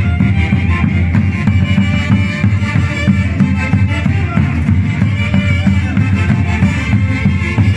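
Continuous music with drums and a strong bass line.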